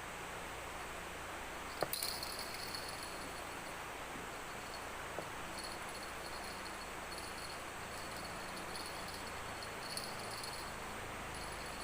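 Insects chirring in high, on-and-off pulses over a steady background hiss, with one sharp click about two seconds in.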